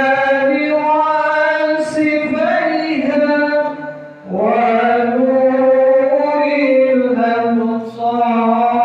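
A man singing a melodious Islamic devotional chant solo into a handheld microphone. He sings in long drawn-out, wavering phrases, with short breaths about four seconds in and again near the end.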